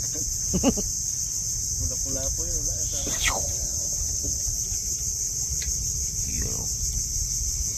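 A steady high-pitched insect-like buzz with a low rumble beneath it, and a few short voice sounds.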